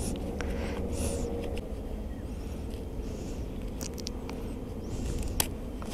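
Motorcycle riding gloves rustling as they are pulled on and adjusted on the handlebar, with a few light clicks, over a low rumble of wind on the microphone; the engine is not yet running.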